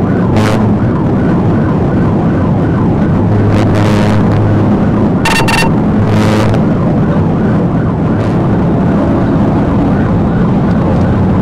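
Patrol car at highway speed, heard from inside the cabin: a steady hum of engine and road noise. A brief beep sounds about five seconds in.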